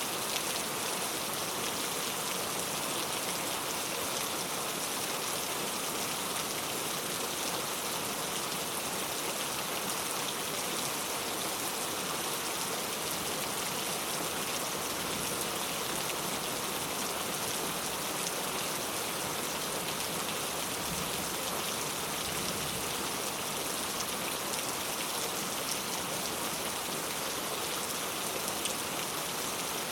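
Heavy rain falling steadily, an even hiss of many drops with no thunder.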